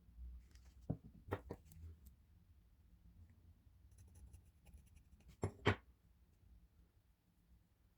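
Light knocks and faint scraping from handling the garden shears and tools during restoration work: three knocks about a second in, then two louder knocks close together about five and a half seconds in.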